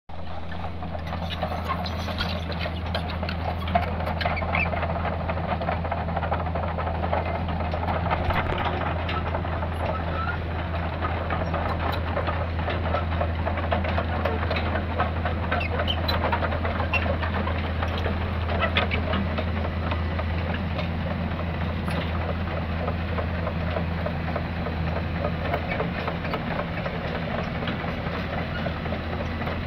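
Komatsu crawler excavator's diesel engine running with a steady low hum while the machine travels, under a busy rattle of many small clicks and clanks.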